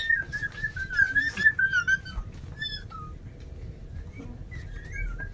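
A high, wavering whistle held for about two seconds, then a few short chirping notes, and another wavering whistle near the end.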